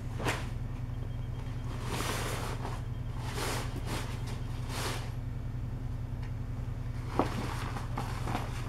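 Tent rain fly fabric rustling and swishing in several bursts as it is folded and gathered up on a concrete floor, over a steady low hum. One sharp knock comes about seven seconds in.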